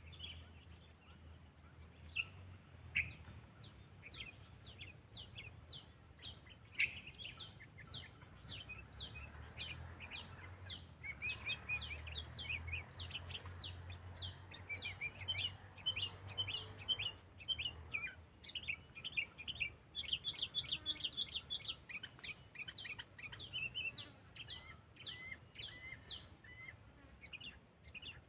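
Sooty-headed bulbul (kutilang) calling in a long, fast series of sharply falling chirps, about two or three a second, with a denser flurry of notes partway through.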